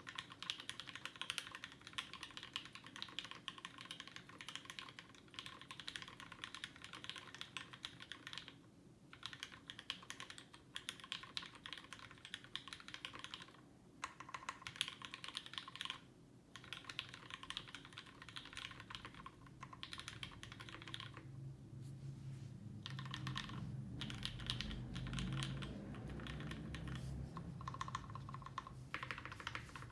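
Fast, continuous typing on an Alf DC60 60% mechanical keyboard with lubed and filmed Gateron Yellow linear switches, a carbon fibre plate, foam between plate and PCB, and GMK keycaps. The typing breaks off briefly a few times. A low rumble joins in during the second half.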